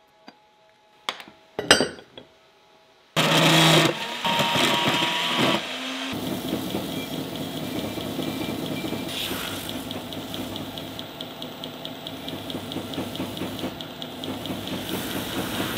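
A few light clicks and knocks of a steel axe head being handled on a workbench, then a belt grinder cuts in suddenly and loudly about three seconds in and runs steadily on.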